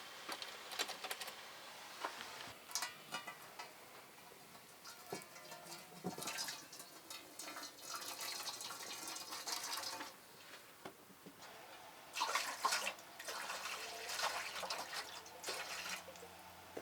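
Water pouring and splashing in several stretches, with a few short knocks in between.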